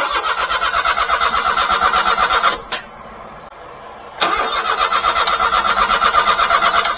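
Starter motor cranking the stalled 1992 Daihatsu Hijet mini truck's engine in two attempts, each a couple of seconds of even, pulsing cranking with a pause between. The engine never catches. The owner suspects it has run out of fuel.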